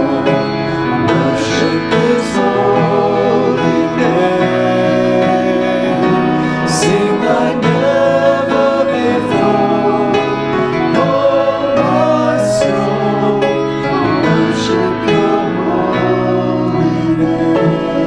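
Worship song sung by voices over instrumental accompaniment, continuing without a break.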